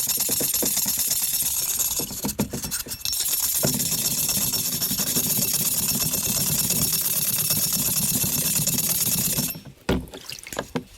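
A small electric motor, like a power tool's, running steadily with a hiss and a low hum. It stops for about a second and a half about two seconds in, then runs again until near the end.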